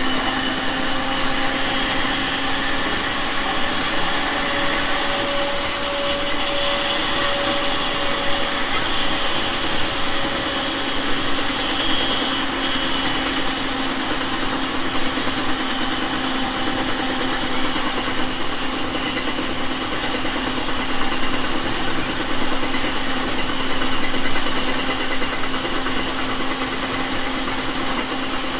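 JR East 701 series 5500 subseries electric train running at a steady pace: a constant rumble of wheels on rail with a steady hum and whine, one higher tone fading out about ten seconds in.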